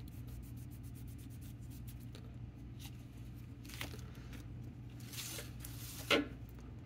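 Plastic pinball drop-target slides being handled and wiped with a microfibre cloth: light ticks and rubbing, a brief scrub about five seconds in, then a sharp plastic clack about six seconds in.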